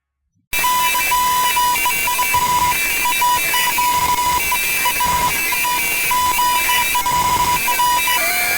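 Electronic beeping sound effect: a high tone switching on and off in uneven short and long beeps, with chattering higher tones over a loud static hiss, starting abruptly about half a second in.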